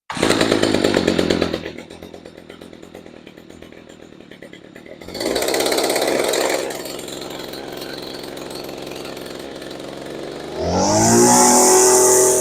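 Stihl FS55 RC string trimmer's two-stroke engine, starting abruptly and running, settling to idle, revving briefly about five seconds in, then revving up in pitch to high speed near the end. It is being run hard to clear what is probably a lot of oil and gas mixed in the system, which makes it smoky.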